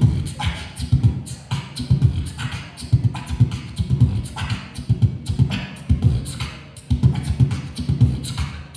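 Live human beatboxing into a microphone: a steady hip-hop beat of mouth-made bass-drum and snare sounds, at about two beats a second.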